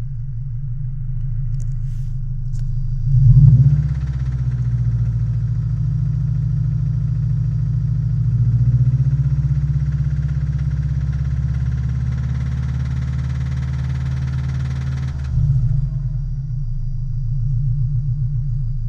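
Subaru EJ20 flat-four engine idling with an even pulse, blipped about three seconds in and held at a raised speed for some twelve seconds, then dropping back to idle. It is run to show a knock in the engine.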